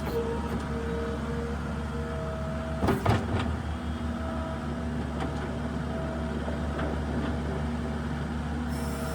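New Holland LS170 skid steer's diesel engine running steadily, with a steady whine over it while it works snow off a driveway. A short, louder clatter comes about three seconds in.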